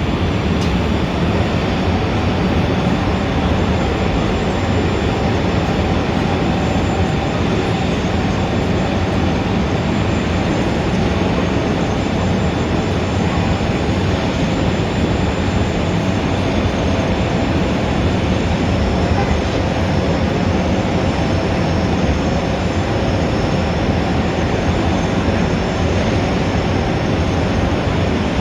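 Steady, dense city traffic noise: one continuous, even wash of sound with no single event standing out.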